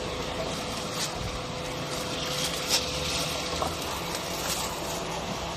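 Steady hiss of a steaming aluminium bun steamer, with a few light crinkles and taps as steamed buns are picked out by a hand covered in a plastic bag.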